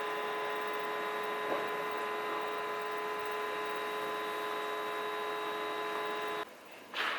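Japanese railway level-crossing warning alarm ringing steadily in several fixed tones, then cutting off abruptly a little after six seconds in. A short scuffing noise follows near the end.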